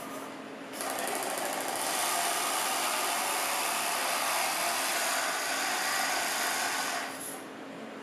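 Electric motors driving the arm of a 3D-printed RC scale excavator, running with a steady whirring buzz as the boom and arm move. The sound starts up under a second in and drops away near the end.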